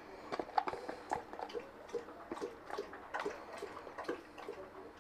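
Light, irregular clicks and crinkles from a disposable aluminium foil pan and a plastic tub as shredded cheese is sprinkled by hand onto stuffed potato halves, a few small clicks a second.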